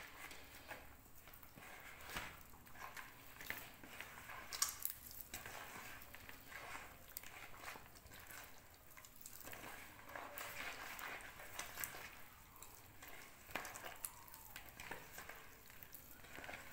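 Hand squeezing and kneading a soft mixture of butter, icing sugar and oil in a plastic bowl: faint, irregular squelching with small sharp squishes.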